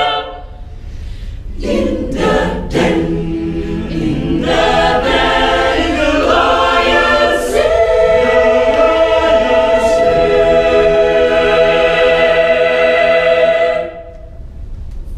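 Mixed youth choir singing a cappella: after a short pause the voices come back in and build to a long held chord, which cuts off about a second before the end.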